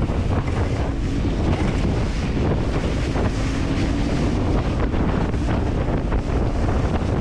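Wind buffeting the microphone on a small open boat under way through breaking surf, with waves and spray hissing against the hull and the boat's motor humming faintly beneath.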